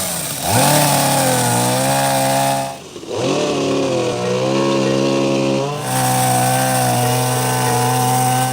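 A small engine revved up and held at high speed three times, dropping back briefly between each rev.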